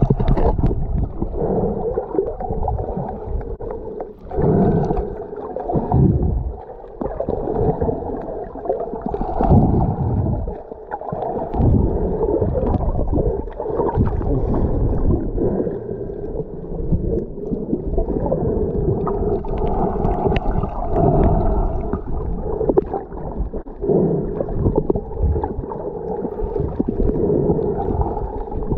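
Muffled underwater water noise picked up through a camera's waterproof housing: dull rushing and gurgling that swells and dips in surges.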